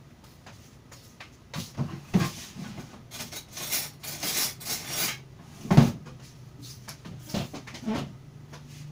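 Kitchen knocks and clatter as a spoon is fetched from the counter: a few knocks, a stretch of rattling utensils, and one loud knock about six seconds in.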